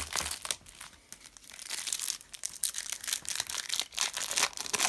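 Foil trading-card pack being torn open and crinkled by hand. The crackling comes in two spells, a short one at the start and a longer one from about two seconds in.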